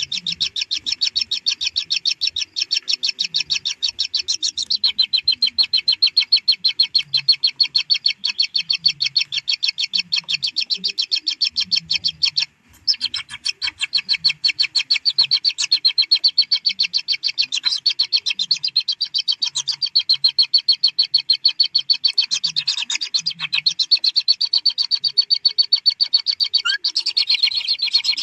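Kingfisher nestlings giving a continuous, rapid, high-pitched ticking begging call. It breaks off for a moment about halfway through.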